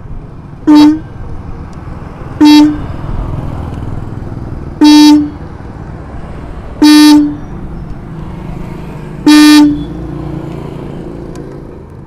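Roots electric disc horn, wired straight to a battery, giving five short honks about two seconds apart as the wire is touched on and off. Each honk tests the setting of the horn's contact-point adjusting screw, which is being turned to find its loudest note.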